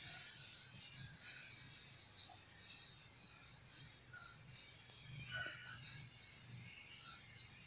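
Steady high-pitched drone of insects in woodland, with a short brighter chirp repeating about every two seconds.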